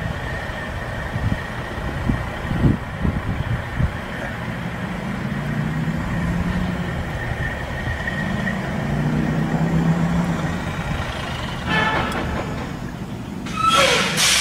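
Semi-truck's diesel engine running and pulling under load with its trailer wedged under a low overpass, a low drone swelling and easing off in the middle. Near the end a loud hiss bursts out with a tone sliding down inside it.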